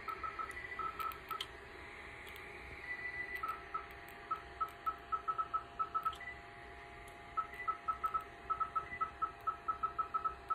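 Clear + Brilliant Perméa laser beeping as its handpiece is passed over the skin of the face: short, high electronic beeps in quick runs of several a second, broken by pauses between passes, with an occasional longer, higher tone. A faint steady hum runs underneath.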